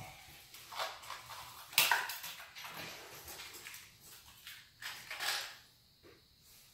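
Quiet rustling and scattered clicks of small wiring parts being handled and searched through, with a sharper click about two seconds in.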